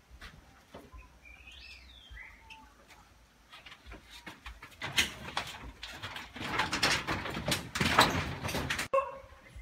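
A bird gives a short call of gliding notes a second or two in. From about five seconds, a louder stretch of rustling and crackling takes over.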